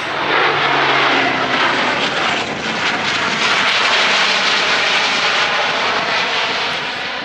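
Aircraft passing overhead, its engines a loud, steady rush with a low tone that falls slightly in pitch over the first two seconds.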